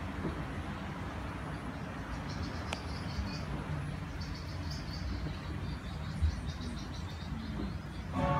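Steady low rumble of a ride boat moving along a water channel, with rapid high chirping calls in short runs through the middle, a single click, and a knock near the end.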